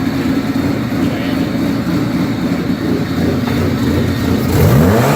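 Car's electric radiator cooling fan running with a steady whoosh like a hairdryer over an idling engine. About four and a half seconds in, the engine is revved and its pitch rises.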